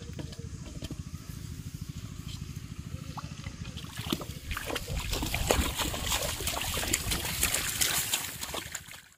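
Shallow muddy water splashing and sloshing as a person wades and stirs it by hand, growing louder about four seconds in, over a steady low rumble; the sound cuts off abruptly near the end.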